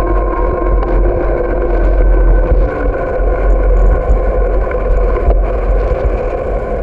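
Wind rumbling on the microphone of a camera carried on a moving bicycle, with a steady hum of road noise underneath.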